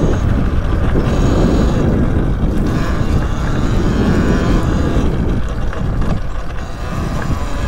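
Wind buffeting the microphone of a rider on a Talaria Sting R MX4 electric dirt bike moving along a dirt trail, a loud, dense low rumble that eases a little near the end.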